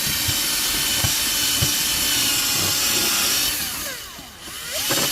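Electric power tool running steadily while working wood, easing off about three-quarters of the way in so its motor winds down, then speeding back up near the end.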